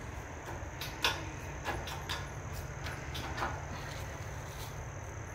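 Steady high-pitched insect trill, likely crickets, under a low outdoor rumble, with a few scattered light knocks and rustles.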